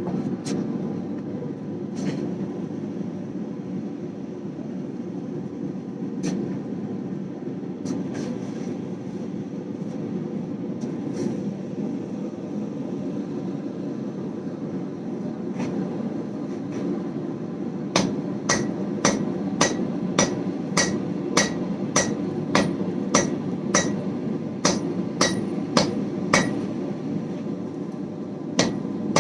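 Hand hammer striking a hot damascus billet of 1095 and 15N20 steel on an anvil during forge welding: a few scattered blows, then from a little past halfway a steady run of about two blows a second, harder and faster to set the weld. A steady low roar runs underneath.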